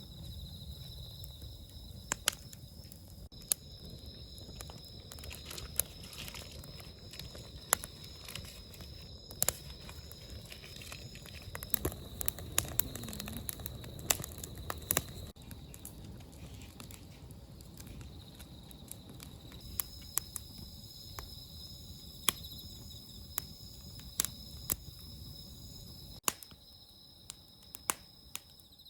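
Wood bonfire crackling, with irregular sharp pops over a low, even rumble. Insects trill steadily at a high pitch throughout.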